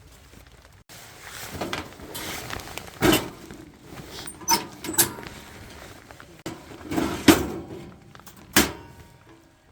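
Rustling and handling noise with about five sharp knocks spread over several seconds.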